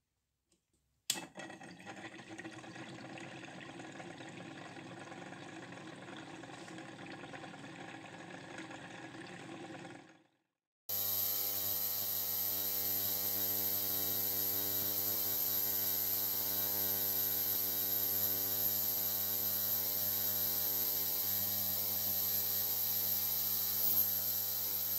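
Jar-type watch cleaning machine switched on with a click about a second in, its motor running steadily with the basket turning in cleaning solution, stopping about ten seconds in. After a short pause, an ultrasonic cleaner runs with a louder steady hum and a high whine.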